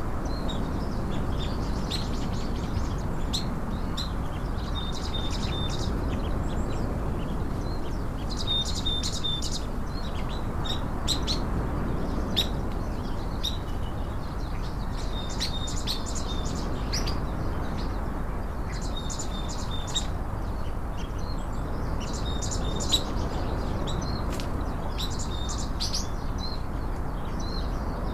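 Small birds chirping in repeated short phrases, each a quick run of chirps ending on a brief held high note, every few seconds. Underneath is a steady low background noise.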